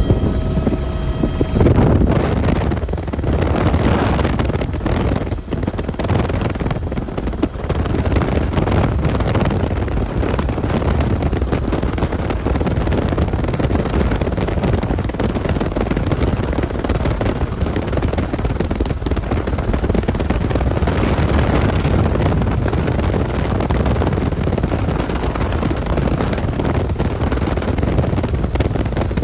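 Helicopter's steady rotor and engine noise, with wind rushing over the microphone. A pitched hum dies away about a second and a half in, leaving a steady rush.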